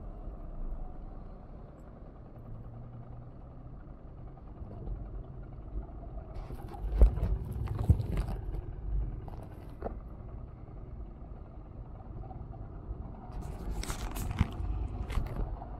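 Road traffic at a busy city intersection: a steady low rumble of passing cars and a lorry. Two spells of sharp scraping, clattering noise come about halfway through and near the end.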